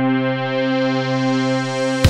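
Intro music: one long held synthesizer note, rich in overtones, growing gradually brighter, breaking into a busy electronic beat right at the end.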